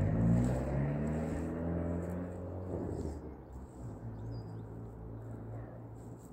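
Engine of a nearby motor vehicle running, its pitch rising over the first two seconds and then holding steady as it fades away.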